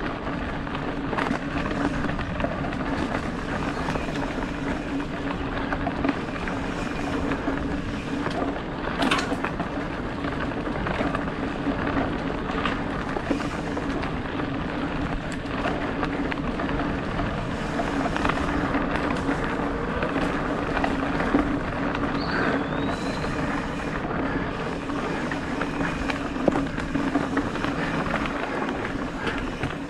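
Mountain bike rolling fast over a dirt singletrack: steady tyre and wind noise, with scattered rattles and knocks as the bike runs over bumps.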